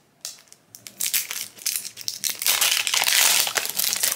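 Shiny plastic wrapper crinkling and crackling as it is peeled off a candy-shaped toy capsule. It starts as scattered crackles about a second in and becomes a dense, loud crinkling in the second half.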